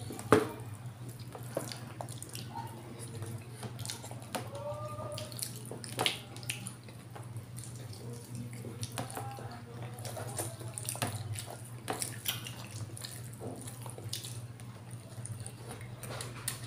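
Wet chewing and lip-smacking of people eating rice and stew with their hands, with scattered small sharp clicks. A steady low hum runs underneath.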